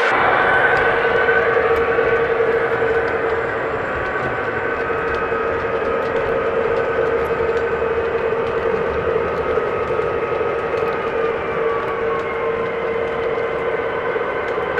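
O gauge model train running on the layout, with steady sustained tones from the trains' sound, one of them sliding down in pitch about eleven seconds in. The whole sound is a little louder in the first few seconds.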